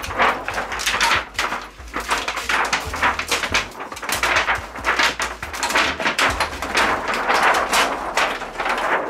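Large white plastic reflector sheet from an LED TV backlight being lifted and flexed by hand, crinkling and rustling with many sharp crackles throughout.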